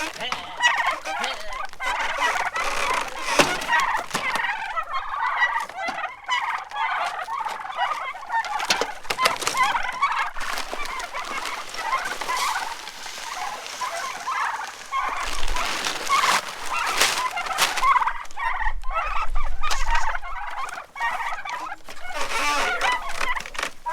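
A flock of birds calling and chattering continuously, many voices at once, with scattered clicks and knocks.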